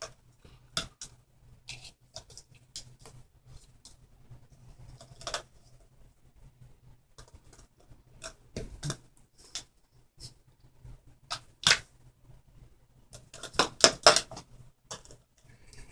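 Scattered light clicks and taps from a kitten playing with its toy cup, with a quick flurry of them near the end.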